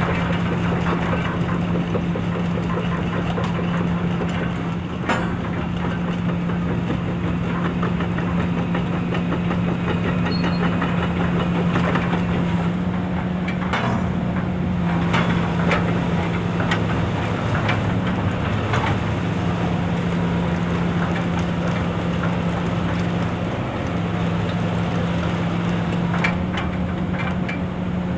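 Hitachi EX355 excavator's diesel engine running at a steady speed, with scattered metallic clanks and clicks from the machine, most frequent around the middle.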